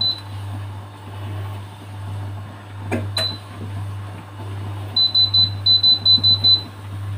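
Touch-control beeps of a glass-ceramic electric hob, with single beeps at the start and about three seconds in, then a quick run of about ten beeps near the end as the cooking zone's power level is pressed up step by step. A steady low hum runs underneath.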